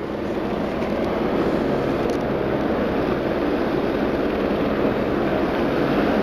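Red shunting locomotive approaching with a line of wagons: a steady mechanical rumble that grows louder over the first second or so and then holds.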